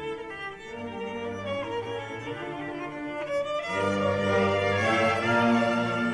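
Solo violin with a symphony orchestra's strings playing sustained melodic lines, with cellos and basses beneath. The music swells louder about two-thirds of the way through.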